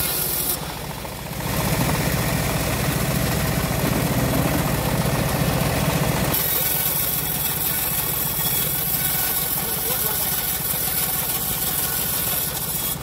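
Homemade bandsaw sawmill running with a steady low engine drone. At the start, and again from about six seconds in, a hissing rush joins it as the blade rips lengthwise through a wooden board.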